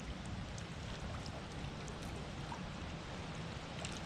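Riverbank ambience: a steady rushing hiss over a low rumble, with a few faint ticks scattered through it.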